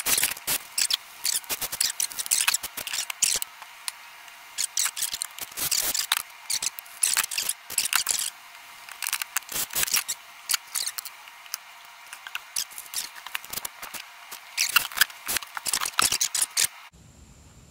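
Bursts of rapid sharp clicking and rattling as wood blocks are screwed down to a plywood plate and handled, with short quieter gaps between the bursts.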